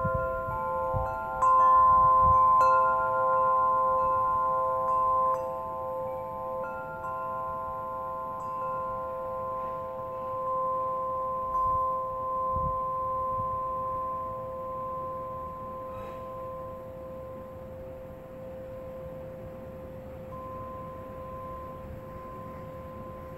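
Wind chime stirred by a breeze: several notes struck in the first few seconds, one more strike a little before halfway, then the tones ring on and slowly fade.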